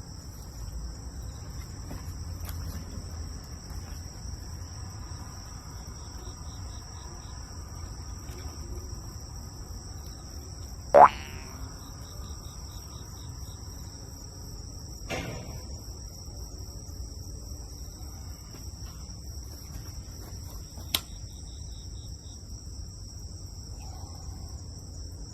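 Steady high-pitched chirring of insects, crickets or similar, with a brief loud squeak about eleven seconds in and two fainter clicks later.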